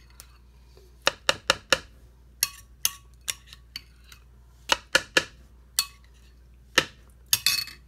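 A spoon clinks and taps against a bowl in short clusters of sharp knocks while the last of a mayonnaise dressing is scraped out onto a salad. The busiest run of knocks comes near the end.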